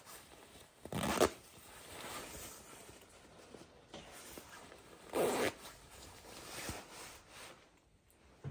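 Zipper on a nylon down puffer jacket, pulled in two short strokes about a second in and again about five seconds in, with the shell fabric rustling faintly in between.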